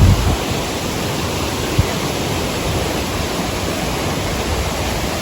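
Waterfall rushing: a steady, dense wash of falling water. There is a low rumble at the very start and a single short knock a little under two seconds in.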